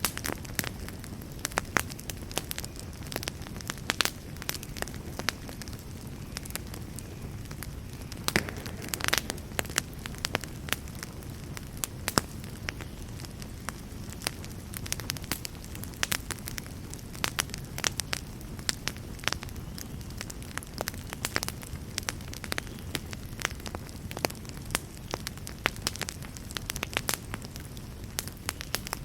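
Wood fire burning in a fireplace: a steady low rumble of flame with frequent irregular crackles and pops from the burning wood.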